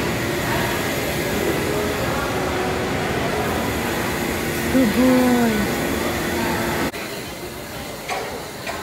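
Busy train-station concourse ambience: a steady wash of crowd and ventilation noise with a faint low hum, and a short voice call about five seconds in. The level drops suddenly about seven seconds in to quieter room noise.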